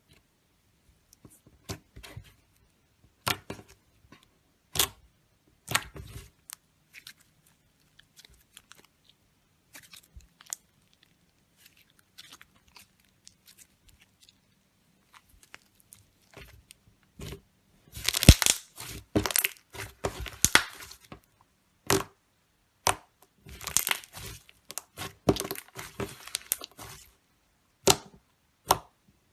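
Slime being stretched and squeezed by hand, giving crisp crackling and tearing sounds. There are scattered single clicks at first, then two dense crackling stretches in the second half.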